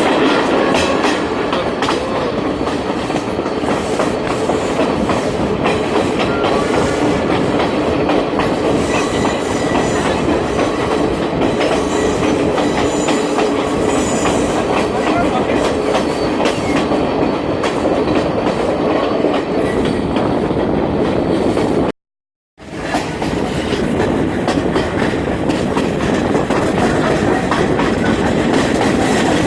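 Train running along the track with a steady rumble and wheels clattering over the rail joints. The sound cuts out completely for about half a second roughly three-quarters of the way through, then resumes.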